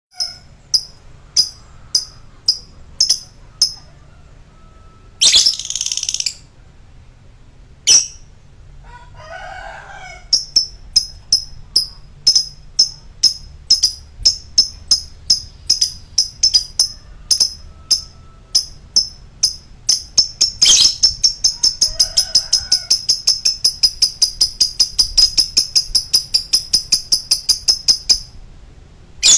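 Lovebird calling: sharp high chirps, at first about two a second, come faster and faster, and about two-thirds of the way through run together into one long, rapid, unbroken chatter that stops shortly before the end. A loud rushing burst breaks in early on.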